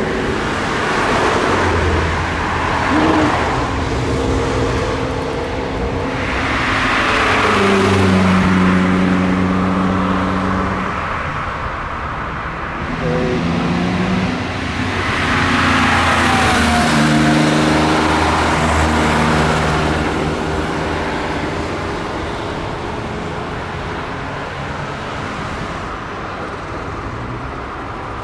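Engines of Italian cars driving past one after another, accelerating and changing pitch as they shift. Two louder swells come about six and fifteen seconds in, as cars pass close.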